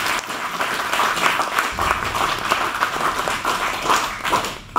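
Audience applauding, many hands clapping at once, stopping near the end.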